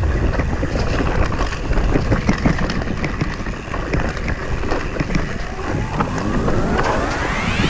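Mountain bike rolling down a dirt trail: tyre noise on dirt, with the bike clattering and rattling over bumps and wind buffeting the rider-mounted microphone. About six seconds in, a rising electronic sweep begins.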